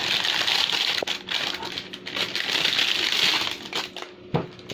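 Thin clear plastic bag crinkling and rustling as a roll of thermal sticker labels is pulled out of it, with a few light knocks.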